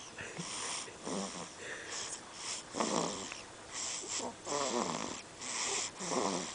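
Snoring: short rattling snores alternate with breathy hisses, several breaths in quick succession.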